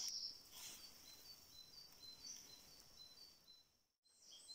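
Near silence: faint outdoor ambience with a faint, evenly repeated high note. It drops to dead silence near the end.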